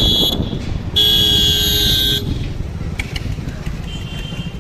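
Vehicle horn honking twice: a short blast that ends just after the start and a longer one of about a second starting a second in, over steady road and engine noise.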